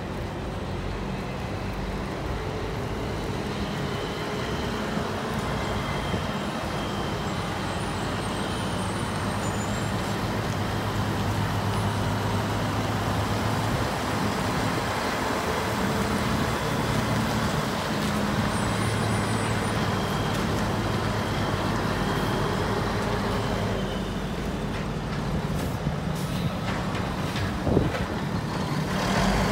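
Semi-truck diesel engine running as the tractor-trailer is slowly maneuvered into position, its note swelling and easing as the driver works the throttle. A single sharp knock is heard near the end.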